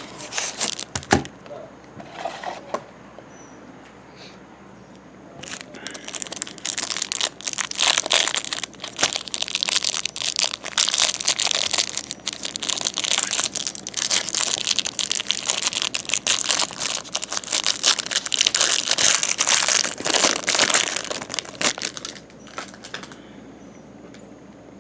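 A hanger box of baseball cards being opened and unwrapped. There are a couple of knocks about a second in, then from about five seconds in a long stretch of loud crinkling and tearing of wrapping and cardboard, which stops shortly before the end.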